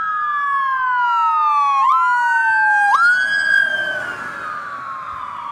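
Emergency vehicle siren wailing. Its pitch slides slowly down and snaps back up several times, with two siren tones overlapping.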